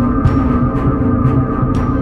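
Background music: held tones over a steady beat of about two hits a second.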